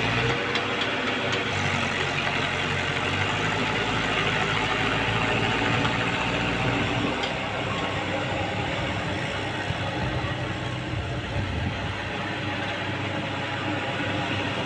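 Tractor's diesel engine running steadily while ploughing, with a slight shift in its low note about three seconds in.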